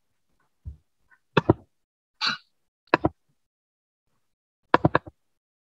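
A few scattered knocks and thumps: a soft thump, a double knock, a short hiss, another knock, then a quick run of three or four knocks near the end.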